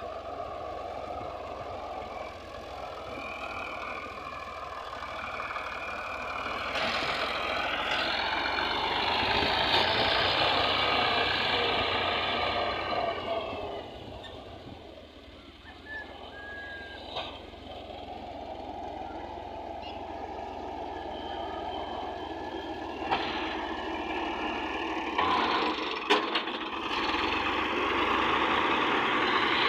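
Farm tractor's diesel engine running steadily as it pulls a disc harrow through a field. It grows louder a few seconds in, drops away about halfway, then builds again near the end, with a couple of sharp knocks late on.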